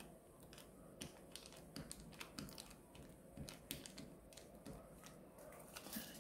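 Glue stick rubbed and dabbed over folded coloured paper, with the paper pieces handled, making faint, irregular soft ticks and rustles.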